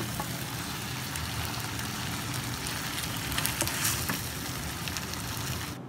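Boiled wontons, bean sprouts and greens sizzling in sweet soy sauce in a non-stick wok as a spatula stirs them, with a few spatula taps a little past the middle. The food is in its last moments of stir-frying, almost cooked.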